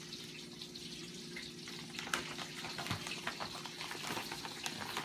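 Fish frying in hot oil with a steady sizzle, and a plastic zip-top bag crinkling as it is handled to coat a fillet in fish fry mix. The crackles come more often from about two seconds in.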